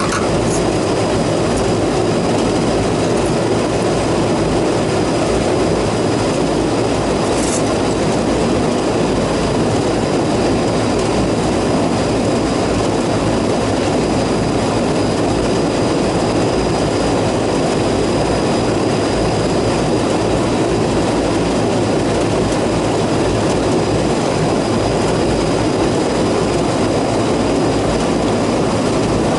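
Refrigerant recovery machine running steadily while it pulls the refrigerant out of the air conditioning system, with a faint high whine over its even running noise.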